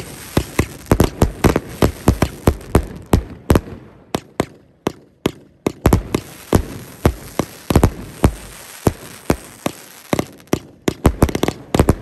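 A 500-gram consumer firework cake firing: sharp launch thumps and aerial shell bursts, several a second. It thins out about four seconds in and again near nine seconds, then comes thick again near the end.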